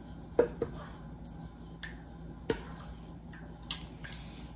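Several short, sharp clicks and taps of a plastic measuring cup knocking against a stainless steel stockpot while soup is scooped out, the loudest about half a second in and again about two and a half seconds in.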